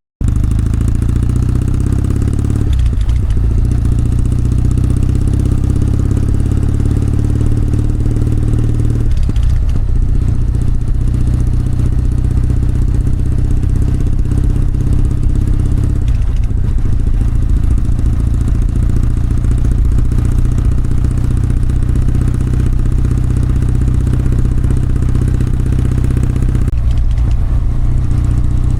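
Kawasaki W650's parallel-twin engine and exhaust running under way, a steady loud engine note with a brief break about four times as the throttle is eased.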